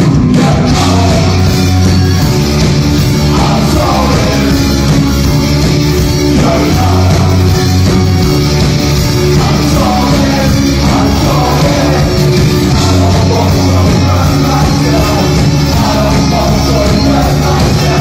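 Live rock band playing loud through a club PA: electric guitar, keyboards and a heavy bass, with a male singer's vocals coming in about three seconds in, heard from within the crowd.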